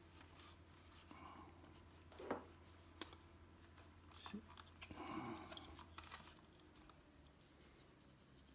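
Faint handling noise: a cloth rustling and a few small clicks and taps as a ribbon cable is worked back into the connector of a gear lever, over a low steady hum.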